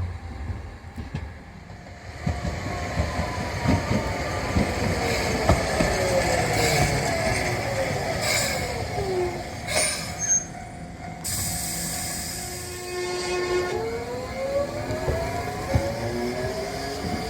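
Kagoshima City streetcar's electric traction motors whining, several tones sliding down in pitch as a tram slows, then a loud hiss, then the whine rising again as a tram pulls away.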